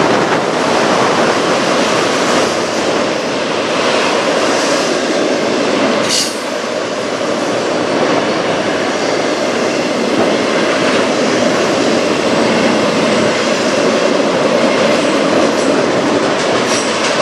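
Freight train of autorack cars rolling past, giving a loud, steady rumble of steel wheels on the rails. There is a brief high screech about six seconds in.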